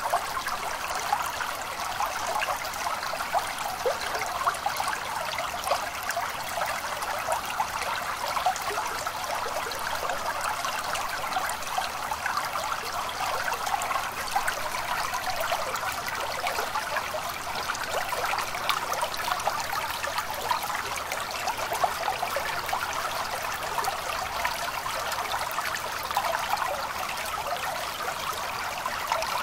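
A small stream trickling and splashing steadily.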